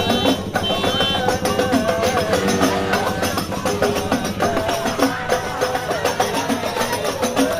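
Music with busy, quick percussion and a winding, wavering melody line over it.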